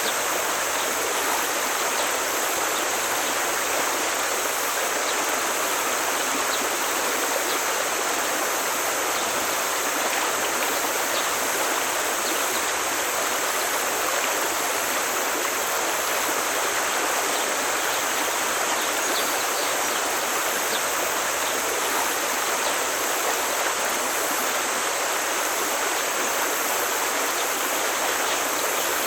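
Forest stream flowing steadily over rocks, an even rushing of water with no change in level.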